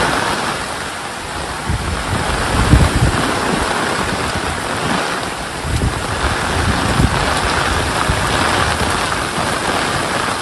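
Steady hiss of rain falling, with low rumbling surges about two to three seconds in and again around six to seven seconds.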